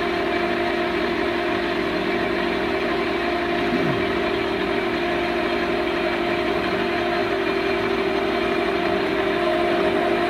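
LeBlond engine lathe running steadily with its chuck spinning, a steady machine hum and whine, while the carriage is driven along by the lead screw to take a threading pass about four thousandths deep.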